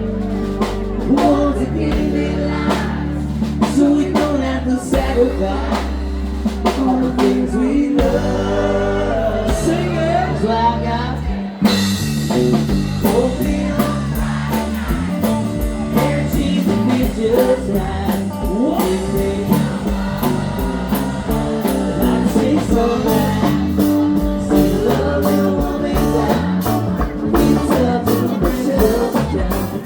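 Rock band playing a blues-rock song with a singer and guitar; the sound grows fuller and brighter about twelve seconds in.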